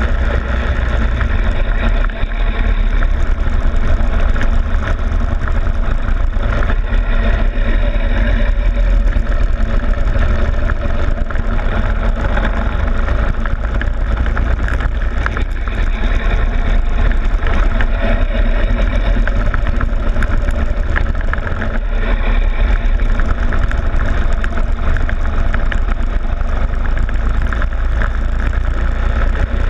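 Go-kart engine running steadily at speed through a lap, picked up by a camera on the kart's front plastic fairing, with a heavy low rumble under it.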